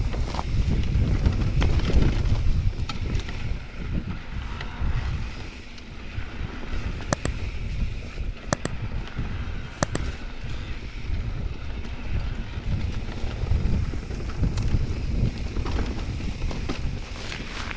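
Wind buffeting the microphone of a camera on a mountain e-bike riding a rocky, loose-stone singletrack, with the bike knocking and rattling over the stones. Louder for the first few seconds, easing off about five seconds in. A few sharp clicks come near the middle.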